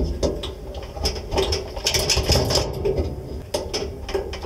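Irregular run of quick metallic clicks and rattles from a perforated sheet-metal object being handled and shifted.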